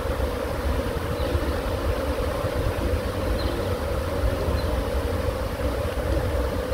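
Steady hum of a honeybee colony flying around its nest, which has been broken open in a brick wall for removal, with wind rumbling on the microphone.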